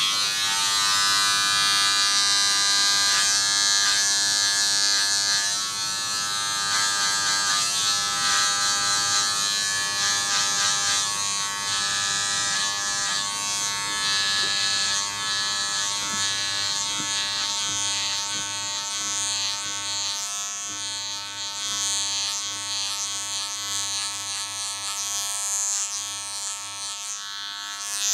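Electric hair clippers buzzing steadily during a haircut, the level wavering slightly.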